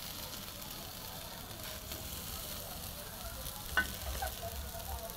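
Beef sizzling on a charcoal grill, a steady hiss, with a sharp metallic clink a little under four seconds in.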